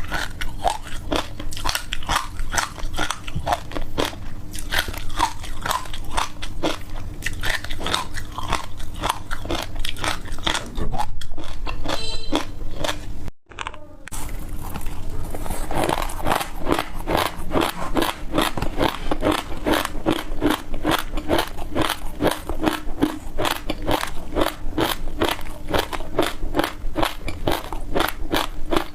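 Frozen ice being bitten and chewed close to a microphone: a rapid, continuous run of crisp crunches, several a second. There is a short break about halfway through.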